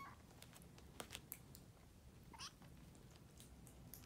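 Kittens mewing faintly: a short cry right at the start and another brief rising one about two and a half seconds in, with a few soft clicks between them.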